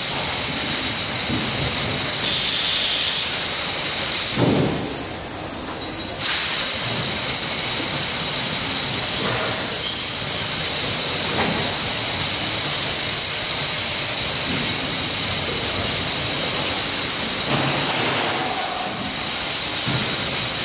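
Horbitek Thesys stretch-film wrapping machine running while wrapping a long package, a steady high hiss with a few dull clunks along the way.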